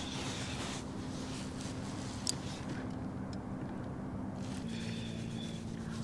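Bow-mounted electric trolling motor humming steadily, its pitch dropping a little about two-thirds of the way in, with one light click a couple of seconds in.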